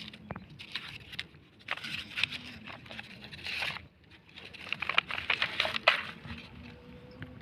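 Plastic crinkling and crackling in several short bursts as old plastic rubbish is picked up and handled.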